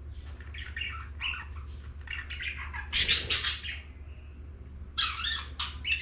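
Budgerigars chirping and chattering in short bursts, with a louder, harsher squawk about three seconds in and another quick flurry of calls near the end.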